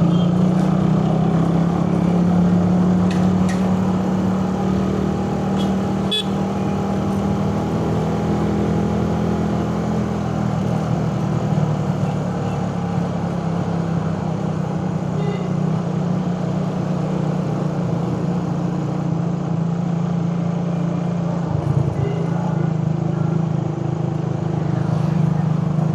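Suzuki Raider 150 carburetted motorcycle engine running steadily under way in traffic, with its engine note dropping briefly about three-quarters of the way through.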